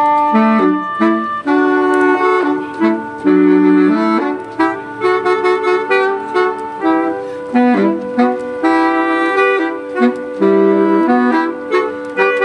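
Saxophone quartet of soprano, alto, tenor and baritone saxophones playing a piece in close harmony: held notes on top over short, detached notes in the lower voices, the chords changing every second or so.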